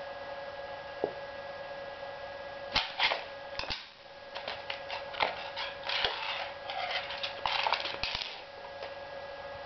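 A kitten scrabbling and pouncing on a hardwood floor and rug, batting at a chopstick: a flurry of sharp clicks, taps and scuffs from about three seconds in until about eight seconds. A steady electrical hum runs underneath.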